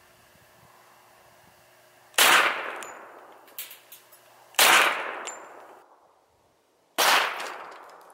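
Three .45 ACP pistol shots, about two and a half seconds apart, each a sharp report followed by a decaying echo.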